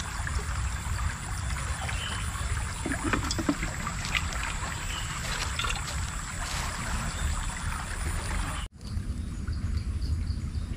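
Small river water trickling and flowing, with a few faint clicks. Near the end it cuts off suddenly to a quieter background of insects chirping in a regular pulse, about two to three chirps a second.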